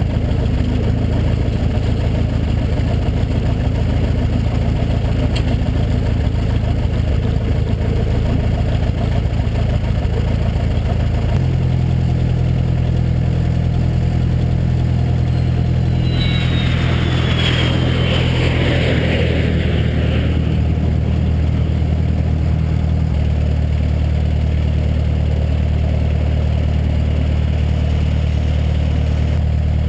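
Cessna 172's piston engine and propeller running steadily at taxi power, the pitch shifting twice, about a third and about three quarters of the way through. A brief falling high whine comes in about halfway through.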